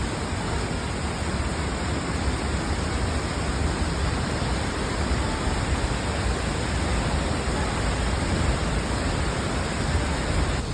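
Tuasan Falls waterfall: a steady, unbroken rush of falling water.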